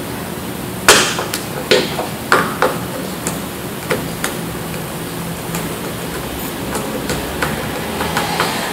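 Sharp clicks and taps of a screwdriver and small screws against the plastic casing of a Leviton 250-volt welder plug as its cap screws are driven in, several close together in the first four seconds and fainter ones after. A steady low hum runs underneath.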